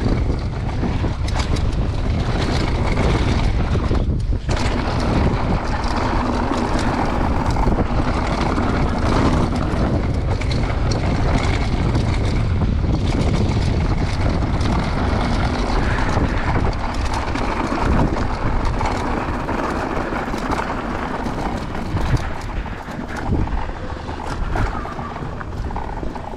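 Mountain bike riding fast down a dirt trail, filmed on a GoPro: wind rushing over the camera's microphone over a steady rumble, with many short rattling knocks as the bike goes over rough ground.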